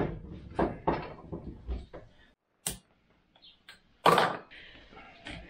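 Work noises: scattered short clicks and knocks of tools and parts being handled, with a louder knock about four seconds in.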